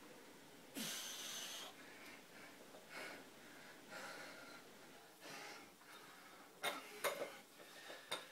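A man breathing hard through weighted pull-ups: one long exhale about a second in, then shorter breaths roughly once a second. Near the end come a few sharp metallic clinks from the dip-belt chain and weight plate.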